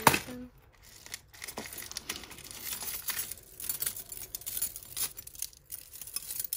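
Plastic bags rustling and crinkling as costume jewellery is handled and sorted, with scattered light clicks of the pieces and a sharp knock right at the start.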